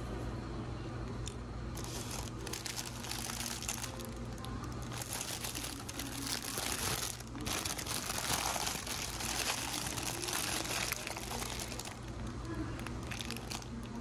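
Paper McDonald's burger wrapper crinkling and rustling as it is unfolded by hand and the burger is lifted out. The crinkling starts about two seconds in and eases off near the end.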